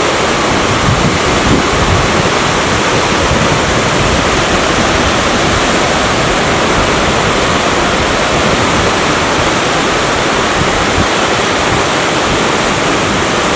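A natural waterfall about 5 m high pouring over rock into a deep pool: a loud, steady rush of falling water.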